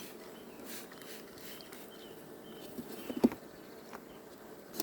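Honeybees humming steadily around an open hive. A few short hisses come through, and there is one sharp knock about three seconds in.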